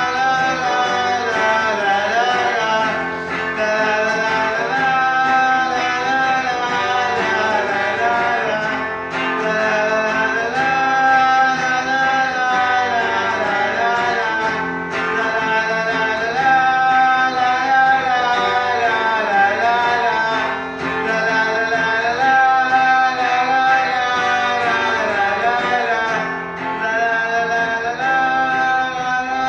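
A song played on acoustic guitar, plucked and strummed, under a melody line that wavers and bends in pitch.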